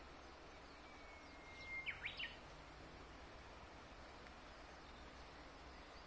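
Japanese bush warbler (uguisu) singing one phrase of its song: a long steady whistled note, then a quick flourish of rising and falling notes, against a faint background hiss.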